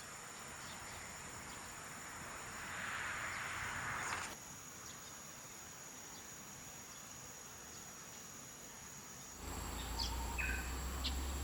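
Quiet outdoor ambience: a steady hiss with a swell of noise about three seconds in that cuts off suddenly, and a few short bird chirps near the end.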